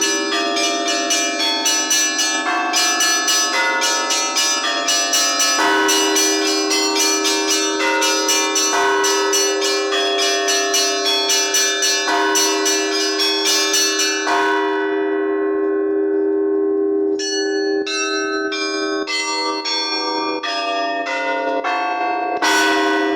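Church bells ringing: a fast run of strikes on the smaller bells over the steady hum of a deep bell. About two thirds of the way through the strikes thin out to a slower, sparser pattern, and near the end comes one heavy strike.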